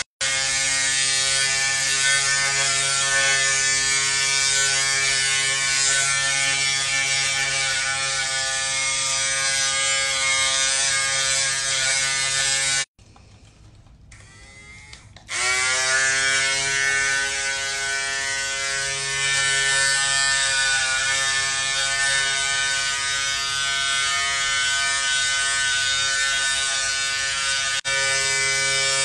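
Corded electric hair clippers buzzing steadily as they cut close-cropped hair. About halfway through they cut out for roughly two seconds, then start again with a rising pitch as the motor spins back up to speed.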